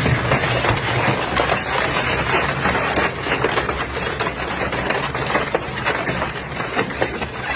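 Heavy recycling shredder running, its motor humming under constant cracking and snapping as material is broken up.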